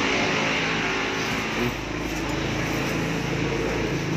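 A steady, motor-like hum runs throughout, with the rustle of clothes being handled over it.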